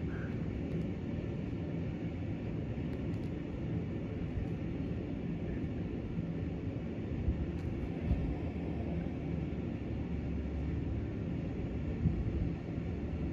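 A steady low rumble under a faint hiss, swelling in the lowest range for a few seconds past the middle, with a few faint clicks.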